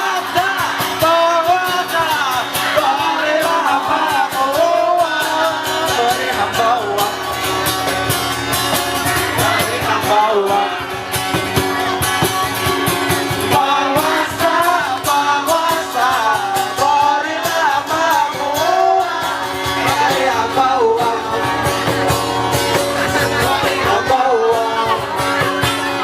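A song sung by a voice over guitar-led band music, running continuously.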